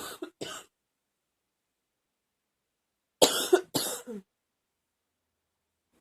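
A woman's chesty, wet cough: a brief double cough at the start, then after a pause of a few seconds a louder double cough, the last one trailing off in a falling voiced sound.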